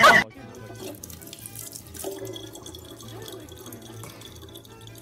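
A loud sound cuts off just after the start. Then comes a thin stream of tap water running steadily into a plastic water bottle, quiet next to it.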